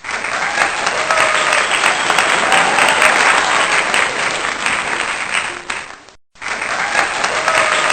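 Crowd applause with faint cheering voices. It cuts out briefly about six seconds in, then starts again.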